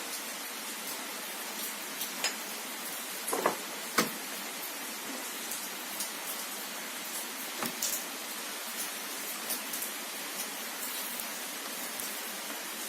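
Steady even hiss with a few faint taps and clicks, from soldering work on an LCD TV's circuit board: the loudest clicks come about four seconds and eight seconds in.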